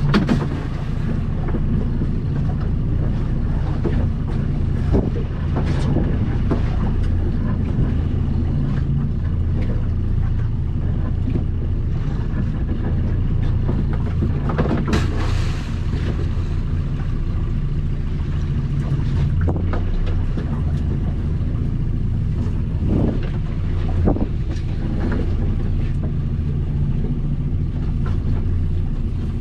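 Outboard motor running steadily, a low even drone, with a few short knocks and clatters of fishing gear being handled.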